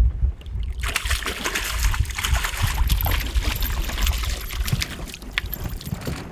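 Water splashing and trickling with many small clicks as a big perch is landed beside a boat, over a low wind rumble on the microphone.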